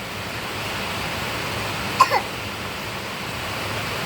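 Steady hiss of heavy rain. About two seconds in, a short, sharp vocal sound with a falling pitch cuts through it, a cough or brief call, followed by a smaller second blip.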